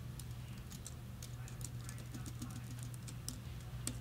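Computer keyboard typing: irregular light key clicks as an IP address is typed, over a steady low hum.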